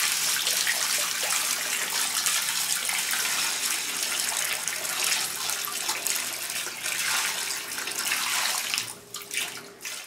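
Water running and splashing steadily, breaking up and dropping away about a second before the end.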